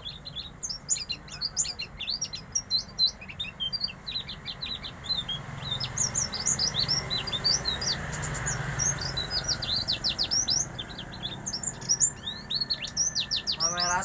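White-eye (pleci) singing a long, fast run of high chirps and twitters.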